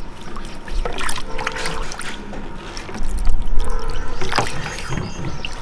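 Handling of a heavy stone mortar holding ground almonds in water: scattered knocks and scrapes, with a louder low rumble about three seconds in.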